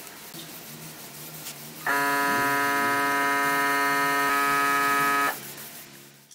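Compressed-air spray gun spraying finish, with a loud, steady buzzing tone that starts abruptly about two seconds in and cuts off about three seconds later as the trigger is released. Before it there is a quieter hiss with a low hum.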